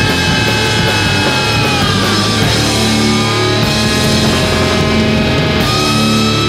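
Loud rock music from a band of distorted electric guitars, bass and drums, with sustained guitar notes and one guitar line sliding down in pitch about two seconds in.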